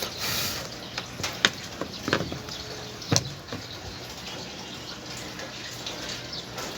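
Light clicks and scraping of small hand tools working on a washing machine's silicone-coated control board, with a short hiss at the start and a few sharp ticks in the first few seconds.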